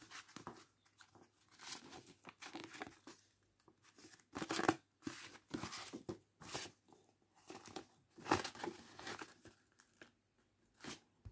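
A sheet of paper being handled and folded into a paper boat, rustling and crinkling in irregular bursts as it is creased.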